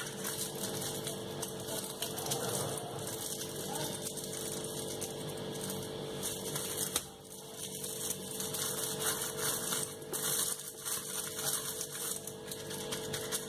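Aluminium foil crinkling and crackling in irregular bursts as hands press and fold it closed over the ends of a wrapped roll, over a faint steady hum.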